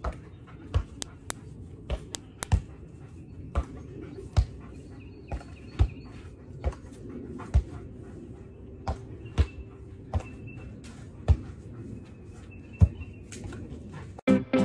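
A ball being volleyed back and forth between a person's hands and a dog, each hit a short sharp thump, about one to two a second at an uneven pace. Birds chirp faintly in the background.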